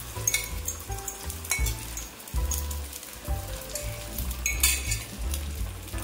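Egg frying in a pan, a steady sizzle with many small crackles and a few sharper clicks.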